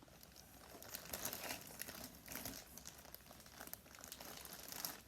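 Faint, irregular crinkling and rustling of packaging being handled as a bag is unwrapped.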